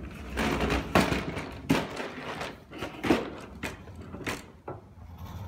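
A plastic baby walker rolling and scooting across a hardwood floor, its wheels and frame giving a string of irregular knocks and thuds.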